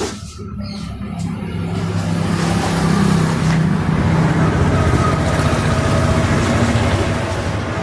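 A motor vehicle passing close by: engine hum and road noise that build up over the first few seconds, hold, then ease off slightly near the end.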